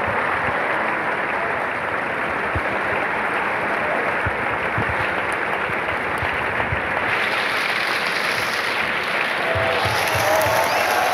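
Large opera-house audience applauding a curtain call: dense, continuous clapping that grows brighter and fuller about seven seconds in, with a few voices calling out near the end.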